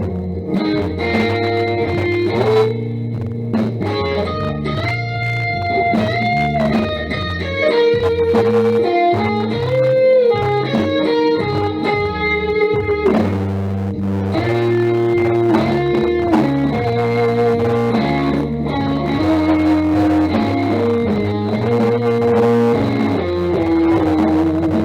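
Instrumental music: a guitar playing a melody with bent and wavering notes over a bass line.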